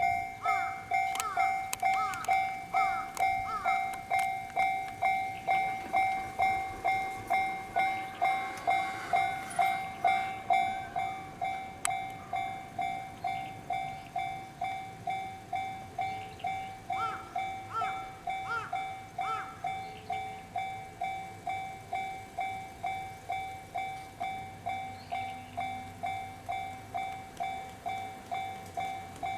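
Japanese railway level-crossing alarm ringing steadily, a repeated bell tone struck about twice a second, with a train running through the crossing partway through.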